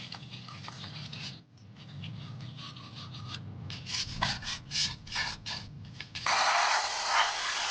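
Rapid, irregular rubbing and scraping strokes on scooter transmission parts being cleaned by hand. About six seconds in, a loud steady hiss starts and keeps going.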